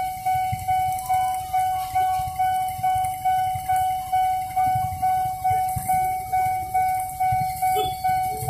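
Railway level-crossing warning bell ringing in a steady series of strikes, about two a second, each one sharp and then fading. It is the signal that the crossing is closed to road traffic for a train. Low traffic rumble sits under it.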